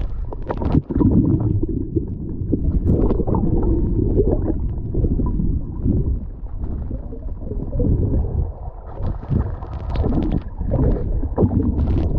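Muffled underwater rumbling and gurgling of water moving around a submerged action camera, with scattered small clicks and knocks.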